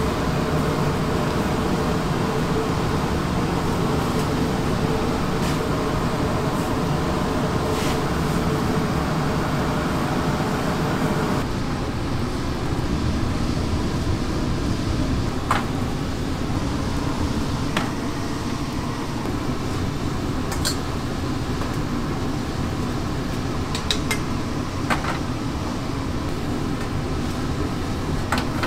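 Restaurant kitchen ambience: a steady mechanical hum like an exhaust fan, with scattered sharp clinks of dishes and utensils. The hum drops and changes about eleven seconds in.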